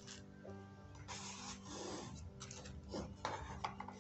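Rustling and handling of a cardboard box and its soft white wrapping, with a few light clicks and taps, over quiet background music.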